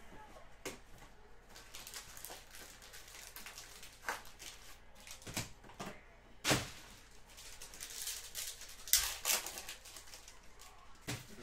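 Trading card packs and cards being handled: scattered crisp crinkles and sharp clicks, irregularly spaced, with the loudest about six and a half seconds in and a quick cluster about nine seconds in.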